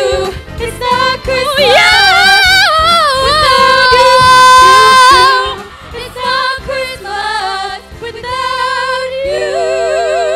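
Three female singers singing a Christmas song into microphones through a PA, holding a long note in the middle and ending on a held note in harmony with wide vibrato.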